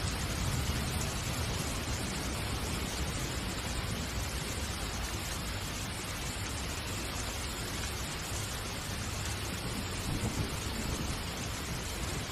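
A steady hiss with a low rumble underneath, swelling slightly near the start and again about ten seconds in, with no distinct knocks or clicks.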